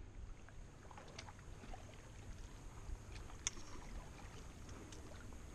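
Canoe being paddled on calm water: faint water sounds from the paddle with a few small knocks, over a low steady rumble.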